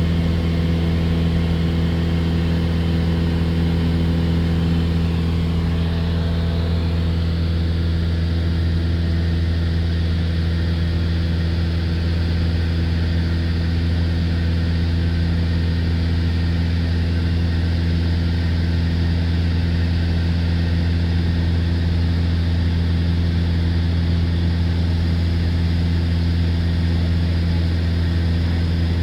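Steady drone of a small propeller aircraft's engine heard inside the cabin in cruise. It is one constant low hum with an even hiss and no change in pitch.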